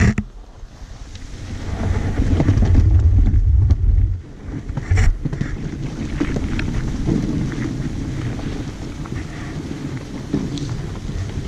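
Dog sled moving over packed snow: a steady scraping hiss from the runners with scattered clicks and knocks. Heavy wind rumble on the microphone builds about two seconds in and drops off suddenly about four seconds in.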